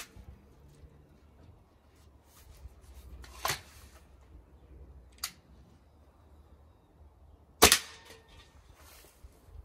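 Hatsan Striker Edge .22 break-barrel spring air rifle: a sharp click about three and a half seconds in and a smaller one near five seconds, then a loud, sharp shot about seven and a half seconds in.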